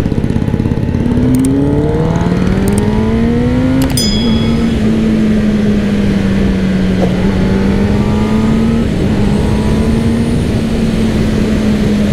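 2021 Kawasaki ZX-10R's inline-four engine accelerating: its pitch climbs for about three seconds, drops sharply about four seconds in as it shifts up a gear, then pulls on fairly steadily in the higher gear.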